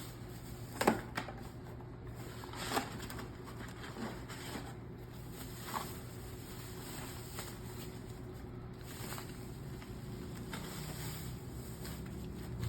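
Scattered rustles, taps and knocks of guitar packaging being handled during unboxing, the loudest about a second in and another near three seconds, over a steady low hum.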